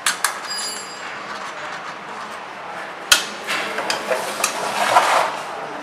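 Metal clinks and knocks from hand work on a stainless-steel packing machine while its discharge section is being screwed in place. There is a brief high ring about half a second in, a sharp knock about three seconds in, and a stretch of busier clattering after it.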